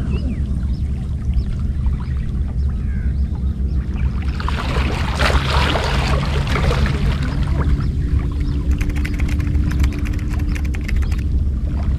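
Shallow seawater splashing around a wader's hands and legs, loudest about four to seven seconds in, over a steady low rumble of wind on the microphone. A run of fast faint ticks follows near the end, with a faint steady hum underneath.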